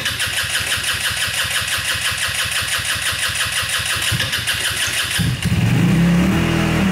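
Go-kart's rear engine cranking over steadily while gas is drawn through an unprimed fuel line full of air, then catching about five seconds in and running, revving up briefly.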